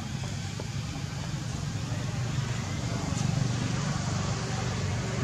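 Steady low rumble with an even hiss of outdoor background noise.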